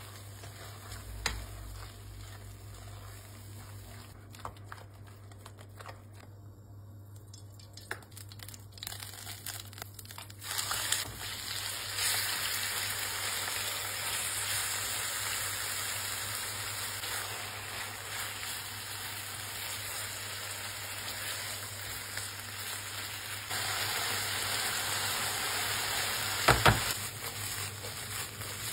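Quiet scraping as a spatula stirs thick eggplant beğendi with grated cheese in a pan. About ten seconds in, this gives way to a steady sizzle of chicken breast pieces frying in oil, stirred with a spatula, with a couple of sharp knocks of the spatula on the pan near the end.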